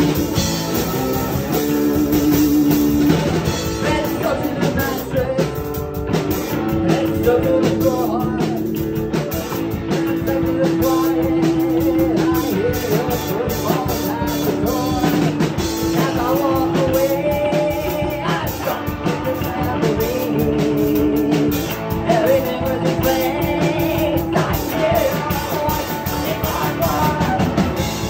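Live rock band playing electric guitar, electric bass and drum kit together, with long held melody notes over a steady drum beat.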